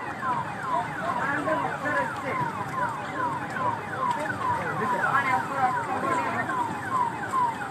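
An electronic siren sounds in quick falling sweeps, about two a second.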